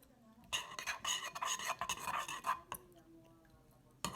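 A utensil stirring and scraping a slime mixture in a bowl: a run of rubbing, scraping strokes for about two seconds, then quieter, with a sharp knock at the very end.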